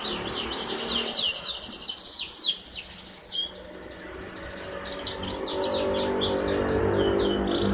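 A domestic canary singing fast trills of quick, high, sweeping notes. The song pauses for about a second and a half a little before the middle, then resumes. A low steady hum rises underneath in the second half.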